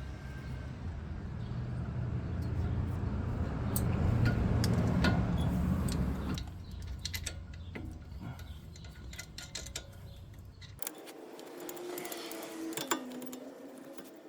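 Light metallic clinks and taps of tools and brake parts being handled while a brake caliper is refitted, over a low rumble that swells and fades in the first half.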